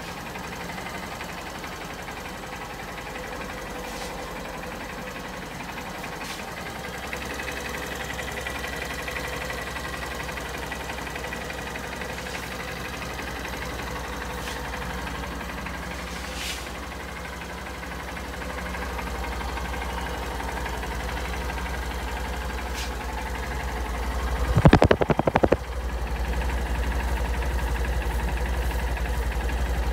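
Honda CB125F's single-cylinder four-stroke engine idling steadily, growing louder in steps; near the end there is a brief loud burst.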